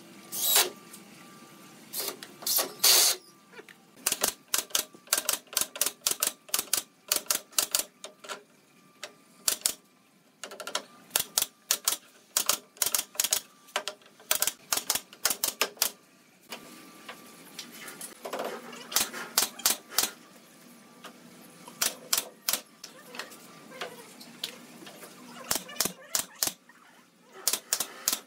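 Pneumatic nail gun firing nails into pallet-wood boards: sharp shots in quick runs, two or three a second, with short pauses between runs.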